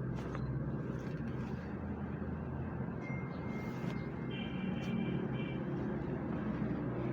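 Steady background noise with a low hum and no speech, with faint brief high tones about three and five seconds in.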